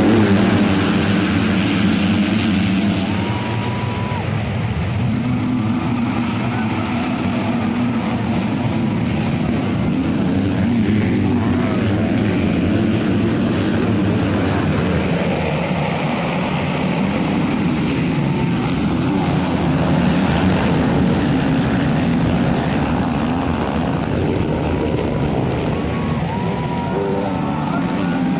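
Several dirt bike engines racing together, revving up and down with brief rising whines as riders accelerate.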